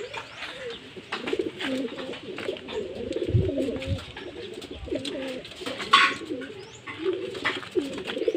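Several racing pigeons cooing over one another in a loft, a continual low warbling, with scattered light taps and a brief louder rustle about six seconds in.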